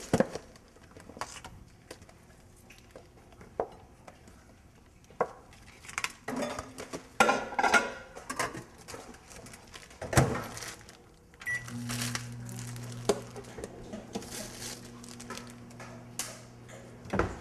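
Dishes and a plate clattering on a kitchen counter, then a microwave oven door shut with a knock about ten seconds in, a short beep, and the microwave oven running with a steady low hum.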